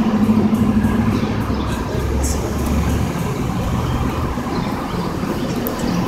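Street traffic: vehicle engines running and cars passing close by, a steady low rumble that grows heavier for about a second, two seconds in.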